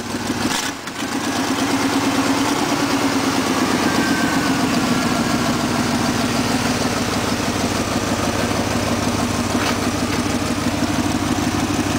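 Chevy small-block 350 V8 in a 1991 Chevy 4x4 pickup idling steadily just after a cold start.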